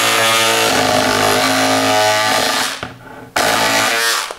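Cordless electric scissors running as they cut through thick denim, a steady motor buzz. It stops a little under three seconds in, starts again about half a second later, and stops just before the end.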